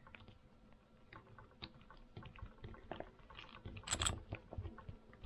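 Small irregular clicks and taps of a screwdriver and metal parts being handled while a Tillotson HR76A carburetor is taken apart, with a brief louder noise about four seconds in.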